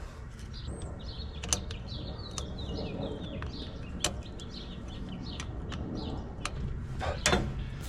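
Several sharp, irregularly spaced clicks of a hand ratchet as the new ABS speed sensor's hold-down bolt is tightened. Small birds chirp in the background, over a low steady rumble.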